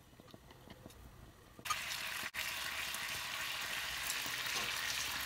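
Soy-sauce-marinated chicken pieces sizzling in hot oil in a frying pan. The sizzle starts abruptly about a second and a half in and stays steady; before it there are only a few faint clicks.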